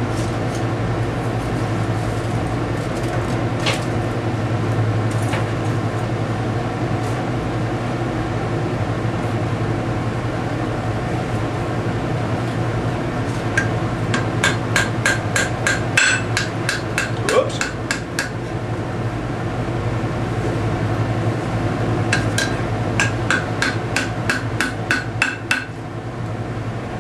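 Hand hammer striking hot steel bar stock on the horn of an anvil, bending it into the curve of an S-hook. There are two runs of quick blows, about three to four a second, each with a ringing note: one about halfway through and one near the end, over a steady low hum.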